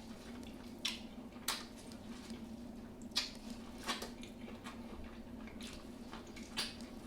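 Wet eating sounds: scattered squishy clicks and smacks of chewing buttery seafood, about one or two a second. A faint steady hum runs underneath.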